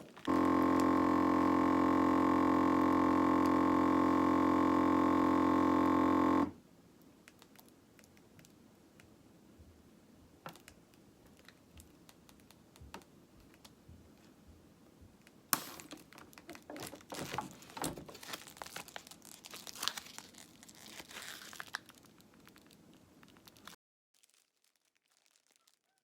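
Vacuum sealer's pump running with a steady hum for about six seconds, then cutting off. In the second half, plastic bags crinkle as they are handled.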